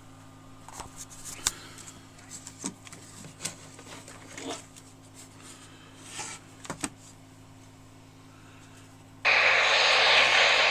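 Small clicks and knocks of a handheld UHF scanning receiver being handled and its buttons pressed, over a steady low hum. About nine seconds in, loud radio static hiss from the receiver's speaker cuts in suddenly and keeps going.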